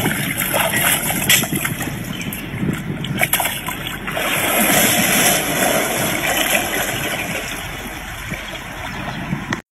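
Hippopotamus falling backward into a pool: a big splash about halfway through, then churning water.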